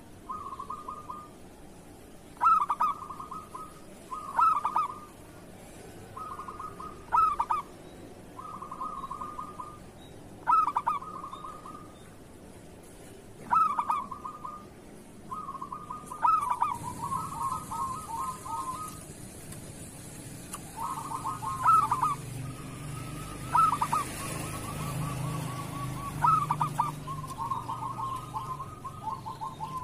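Zebra doves (perkutut) cooing in the local kerot style: about a dozen short phrases of quick, pulsed coos with a loud opening note, some overlapping as if from more than one bird. About halfway through, a low hum and a faint hiss come in underneath.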